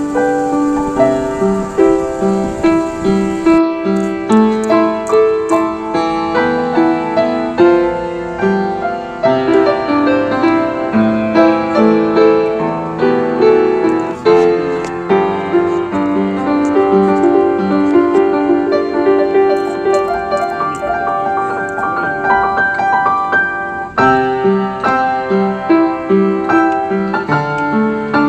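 Background piano music playing a continuous melody.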